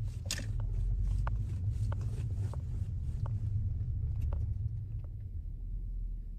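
Low road and tyre rumble inside an Audi S driving over uneven road, with scattered short knocks from the right-front suspension, which the mechanic puts down to a worn control-arm bushing.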